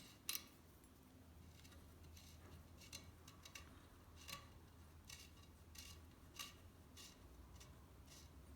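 Faint, scattered metallic clicks and ticks of a choke wrench working a choke tube out of a 12-gauge over-under shotgun's barrel, with one sharper click just after the start.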